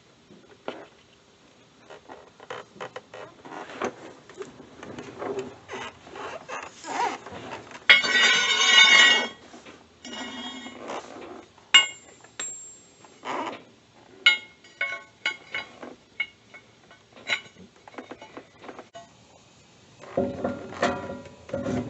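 Metal tools and parts clinking and clanking against the steel of a bush hog mower during blade and stump-jumper work: many separate knocks, a louder rattling scrape about eight seconds in, and a sharp ringing clank near twelve seconds.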